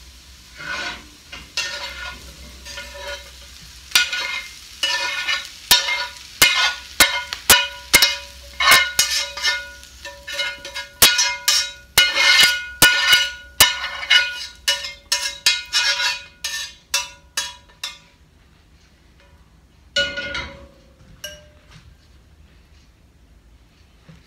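Spatula scraping and rapping against a cast iron skillet to knock wilted greens out of it, each knock leaving the pan ringing briefly. The knocks come in quick runs from about four seconds in until about eighteen seconds, with one more knock near twenty seconds.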